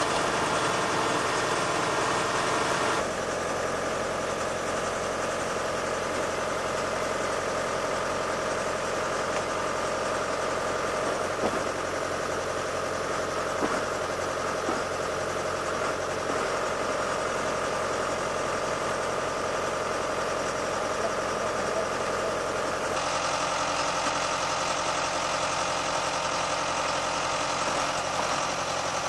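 Tractor engine running at a steady speed. The tone of the sound changes abruptly about three seconds in and again near the end.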